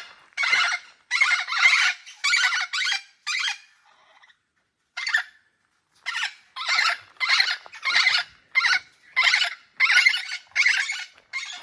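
Parrots squawking: a rapid series of short, harsh calls, about two a second, with a lull of roughly two seconds in the middle.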